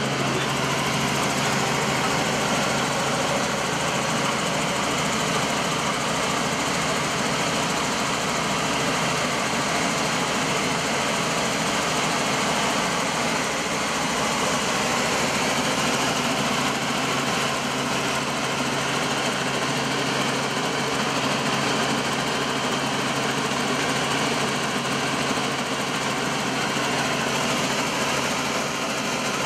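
Helicopter engine and rotor noise heard from inside the cabin in flight: a steady, even drone with a constant low hum.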